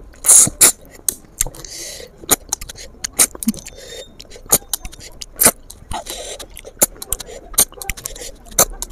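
Eating noises of someone eating river snails in their shells: irregular sharp clicks and smacks, one to three a second, with a few short hissing slurps as the meat is sucked out.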